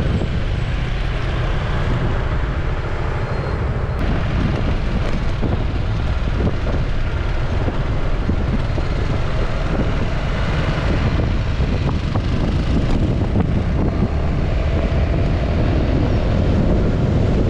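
Maxi-scooter ridden at road speed, heard from a camera on the bike: steady wind noise on the microphone over the engine and tyres.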